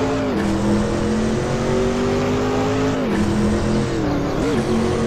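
Electronic car engine sound effect revving steadily, its pitch creeping up and dropping sharply twice, about a third of a second in and again about three seconds in, with a short blip of revs near the end.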